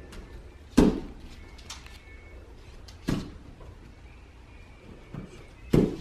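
Small dog jumping up against a wooden half-wall post and dropping back onto a hardwood floor, making four short knocks, the loudest about a second in and two close together near the end.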